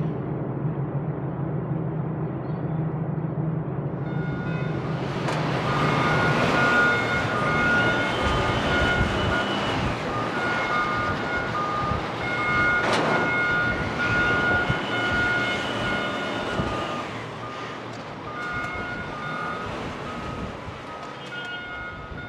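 A low steady machinery hum, then from about four seconds in an electronic warning alarm beeping in a repeating pattern of tones at several pitches, with one sharp clang about halfway through; it fades towards the end.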